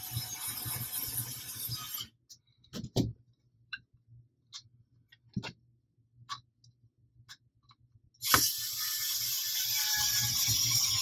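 Scattered light clicks and taps of small bolts and plastic parts being handled and fitted while a blaster stock is screwed together, set between stretches of steady background hiss.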